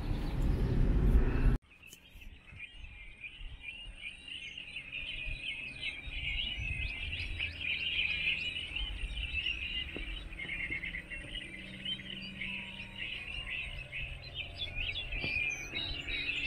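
Car road and engine noise for about a second and a half, then a sudden cut to many small birds chirping in a dense, continuous chorus over a faint low rumble.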